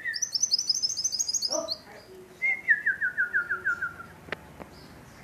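Kolibri wulung sunbird singing. A fast run of high, thin notes is followed after a short pause by a lower trill of rapidly repeated notes that steps down in pitch, with two faint clicks near the end.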